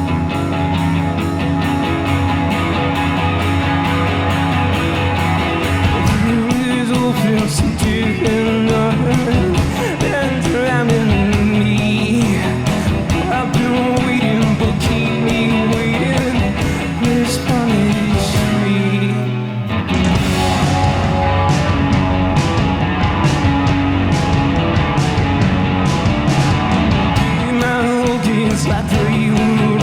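Live rock band playing with electric guitar and drums, with a brief break about two-thirds of the way through before the full band comes back in.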